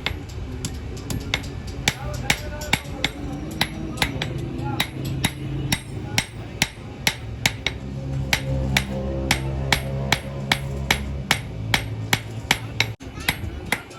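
Blacksmith's hammer striking steel on an anvil while a sickle is forged, sharp metallic blows at a steady pace of about three a second over a low sustained hum.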